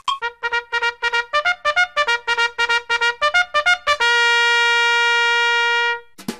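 Intro music: a quick run of short pitched notes, then one long held note from about four seconds in that stops about two seconds later.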